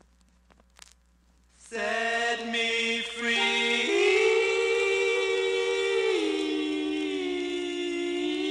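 A few faint clicks, then a doo-wop vocal group comes in about two seconds in, singing close harmony and holding long chords that shift every second or two, played from a vinyl 45 rpm single.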